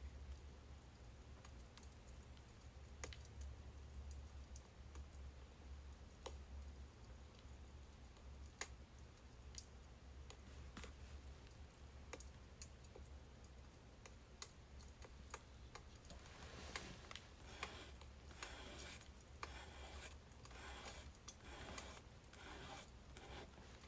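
Faint crackling of burning birch firewood: scattered single pops, then a denser run of crackles from about two-thirds of the way in, over a low steady hum.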